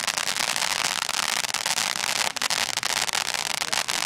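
Consumer firework fountain burning, giving off a dense, continuous crackling with many sharp pops mixed through it.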